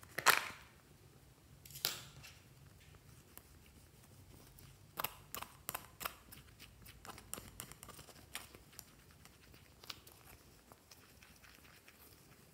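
A plastic eyeshadow compact's lid clicks sharply, then once more about two seconds later. A run of light clicks and scrapes follows as a plastic spatula chops and crumbles the pressed eyeshadow in the pan.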